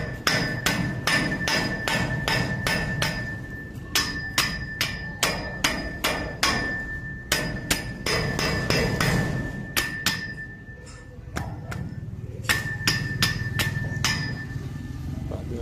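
A dirty stock panel air filter knocked repeatedly against a steel pole to shake the dust out, each knock making the pole ring with a metallic ping. The knocks come in quick runs of about two to three a second, with a short pause about ten seconds in.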